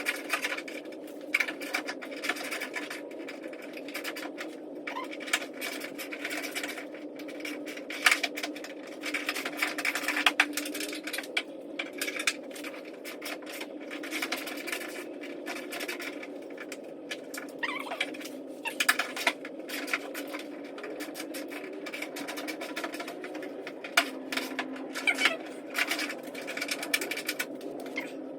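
Irregular metallic clicks, knocks and scrapes of hand tools and hardware as the fender's top flange is bolted on, over a steady low hum in the background.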